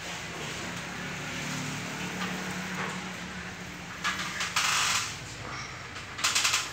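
Water jet spraying onto a split air conditioner's indoor evaporator coil during cleaning, in two short hissing bursts about four and six seconds in, over a steady low hum.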